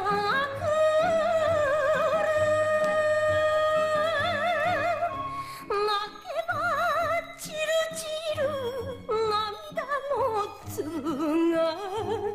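Japanese enka song: a woman sings long held notes with a wide, wavering vibrato over an instrumental backing.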